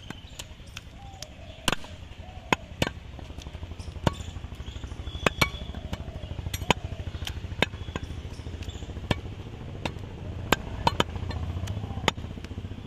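Butcher's knife cutting beef on a wooden stump block: sharp, irregular knocks of the blade striking the wood, about one or two a second. A low, steady engine-like drone runs underneath.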